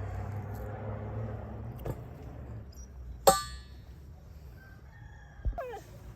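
A single sharp metallic clang about three seconds in, ringing briefly, with a duller knock a couple of seconds later. A rooster starts crowing near the end.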